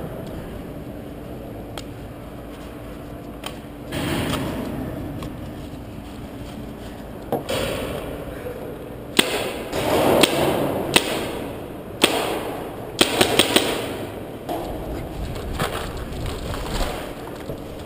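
Paintball markers firing in a game: scattered sharp pops, with a quick run of several shots about three-quarters of the way through, over the rustle of the player moving.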